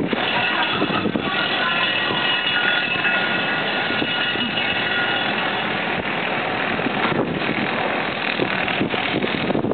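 Wind rushing and buffeting across the microphone on a cruise ship's open deck, a steady noise. Faint high steady tones sound over it for the first several seconds, then fade.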